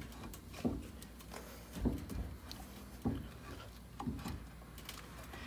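Light metal knocks and clinks, about five spread over a few seconds, from a brake caliper and its pads being worked against the rotor and bracket. The pad keeps slipping because the caliper piston is not pushed back far enough to clear the rotor.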